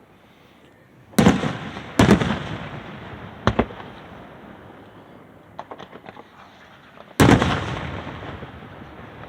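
Aerial fireworks shells bursting: three loud booms about a second, two seconds and seven seconds in, each trailing off slowly, a shorter sharp bang in between, and a quick run of small crackling pops a little before the last boom.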